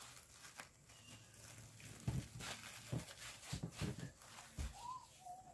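Faint rustling and handling of stiff sisal mesh and burlap bouquet wrap, with a few soft knocks. Near the end, a brief whistle-like tone rises and then falls.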